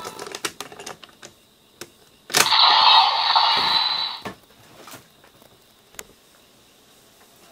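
Plastic clicks as a toy train is handled and set into a toy base, then a loud hiss-like electronic sound effect from the toy's small speaker for about two seconds, starting and stopping abruptly. A few faint plastic clicks follow.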